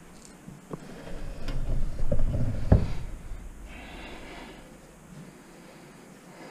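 A few knocks and thumps of a wrench being worked on a fender bolt under an old car, the sharpest about two and a half seconds in, followed by a short rushing hiss.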